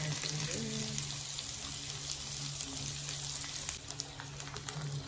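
Tomato slices and spinach frying in oil in a nonstick pan: a steady sizzle with small crackles and pops.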